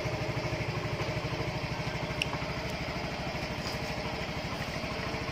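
Yamaha Mio scooter's single-cylinder four-stroke engine running steadily at low speed with an even, fast pulse, turning the wheel while the speedometer reads about 20 km/h.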